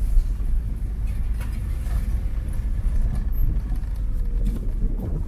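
Car driving slowly along a dirt track, heard from inside the cabin: a steady low rumble of engine and tyres.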